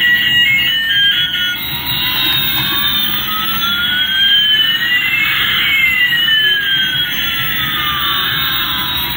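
Toy Airbus A380's electronic sound effects: a short beeping melody that gives way about two seconds in to a synthesized jet-engine noise, one tone sliding slowly up while another slides down, over a steady low rumble.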